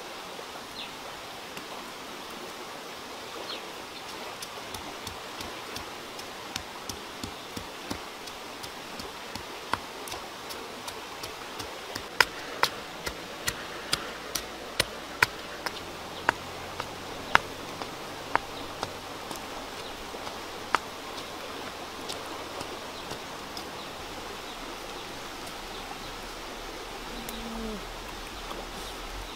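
A stone pestle knocking into a stone mortar as chillies are pounded: a string of sharp, irregular knocks, about one or two a second, loudest in the middle and thinning out after about twenty seconds. Under it runs a steady hiss of flowing water.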